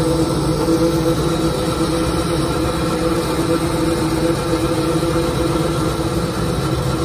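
Hydraulic press's pump motor running steadily: a low hum with a steady whine held on two tones.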